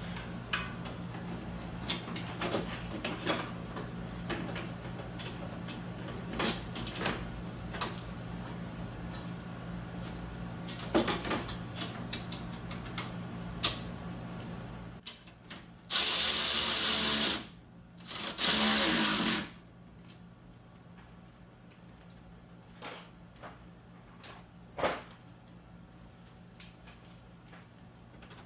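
Cordless drill-driver running in two short bursts, each about a second and a half, about halfway through, driving in the fasteners of a radiator fan shroud. Before that come light knocks and clicks of the shroud and hardware being fitted into place.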